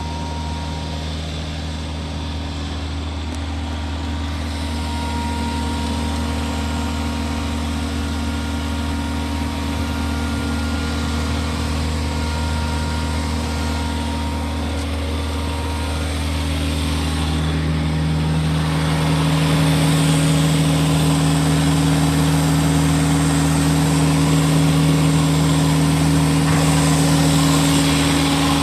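Takeuchi TL120 skid steer's diesel engine running steadily, then picking up speed and getting louder about two-thirds of the way through and holding there. The machine has a known exhaust leak.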